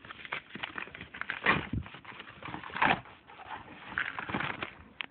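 Yellow padded paper mailer being torn open and handled: crinkling, crackling paper rustle with louder rips about a second and a half in and again near three seconds.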